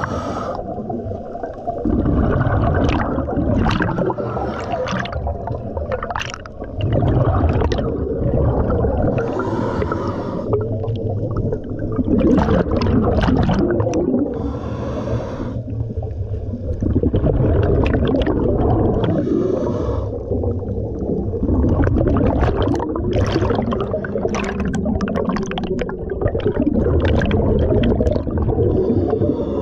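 Scuba diver breathing through a regulator underwater: a short hiss on each inhale a few times, and between them the gurgling, crackling rumble of exhaled bubbles.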